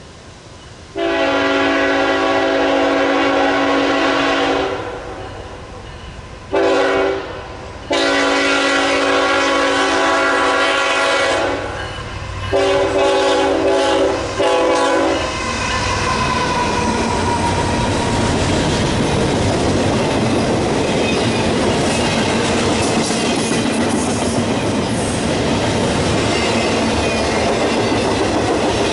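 Locomotive multi-chime air horn sounding five blasts, long and short. The train then passes close by, with a steady loud rumble and the clickety-clack of wheels on the rails.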